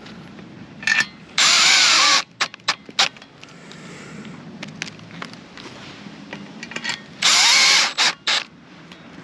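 Power drill driving 2-inch screws: two bursts of under a second each, about six seconds apart, the motor pitch sagging and rising as each screw goes in, with a few clicks and knocks around them.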